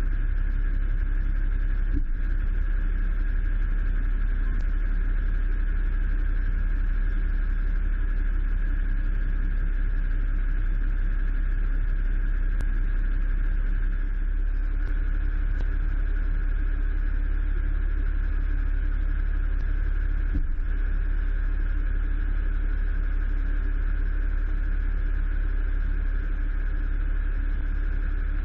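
A Seagrave fire engine's diesel engine idling steadily, heard up close as a low drone with a steady higher hum above it. There are two faint knocks, about two seconds in and again about twenty seconds in.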